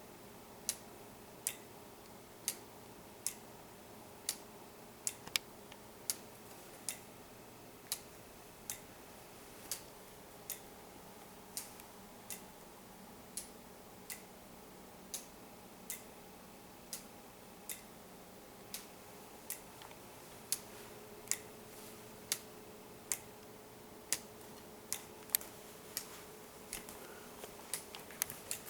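Homemade weight-driven clock escapement ticking steadily, a little faster than one tick a second, as the escapement pushes the pendulum.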